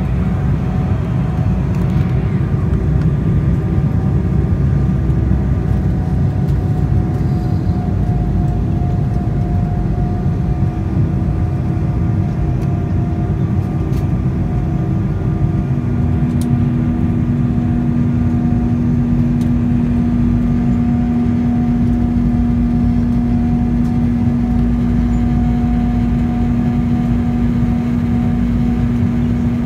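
Inside the cabin of an Embraer 190 airliner descending toward landing: a steady low rumble of airflow and the jet's GE CF34 turbofan engines, with faint steady hums. About halfway through, a new low steady hum starts and holds.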